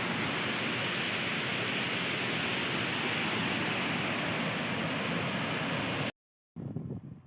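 Steady rushing of a waterfall, which cuts off abruptly about six seconds in. After a brief silence, fainter uneven sounds follow.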